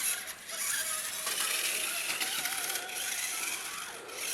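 Toy RC monster truck's small electric motor and plastic gears whirring and rattling, the whine wavering in pitch as the throttle changes.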